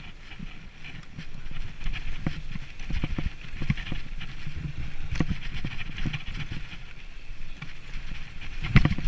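Mountain bike rattling and knocking as it rolls fast over a rough dirt forest trail, with a low wind rumble on the microphone. A louder thump comes near the end as the bike hits a bump.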